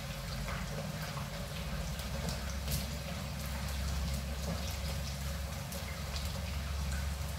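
Battered potato slices (bhajias) deep-frying in hot oil: a steady sizzle full of small crackles and pops, with a steady low hum underneath.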